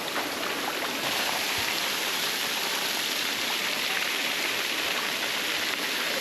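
Waterfall's falling water rushing with a steady, even hiss.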